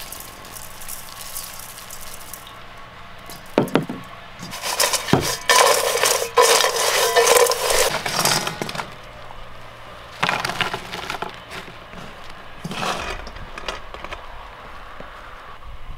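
Crisp fried potato strips rustling and crackling against an enamel bowl as they are tossed by hand, loudest for a few seconds in the middle with shorter bursts later. A few sharp knocks of the bowl come just before.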